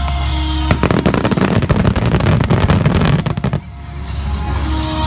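Fireworks going off in a dense, rapid run of crackling pops for about three seconds, starting about a second in and stopping suddenly, over music.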